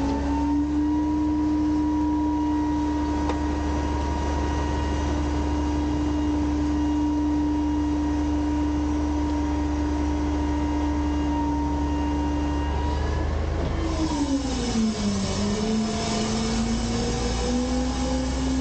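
Autocar/Heil front-loader garbage truck running its hydraulic packer blade, the engine at raised revs driving the pump with a steady, constant-pitched drone. About fourteen seconds in, as the blade reverses, the pitch dips and climbs back up and a hiss grows louder.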